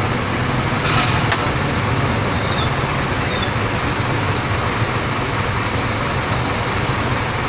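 Scania P310 fire truck's diesel engine running with a steady low rumble, heard from inside the cab, with surrounding traffic mixed in. Two short clicks sound about a second in.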